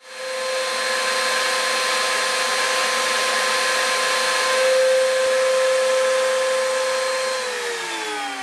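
Router spindle of a DWC1824 Mini Carver CNC running at high speed while carving letters into wood: a steady high whine over the hiss of cutting. About seven seconds in the pitch falls as the router spins down.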